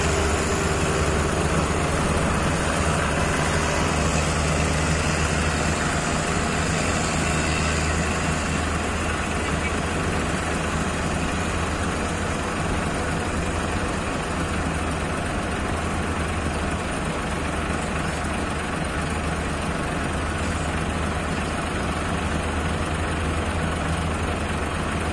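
Diesel engines of a Komatsu HM400 articulated dump truck and an excavator running steadily at idle, while the truck's dump body is held tipped up to unload soil.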